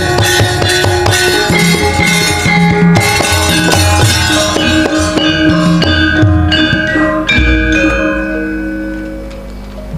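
Javanese gamelan ensemble playing, bronze metallophones and gongs ringing over kendang drum strokes. The playing thins out and closes on a deep gong stroke about seven and a half seconds in, its ring fading away.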